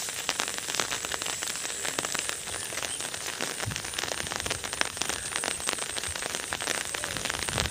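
Floodwater rushing fast through a small brick-and-concrete road culvert: a steady noisy rush full of fine crackles.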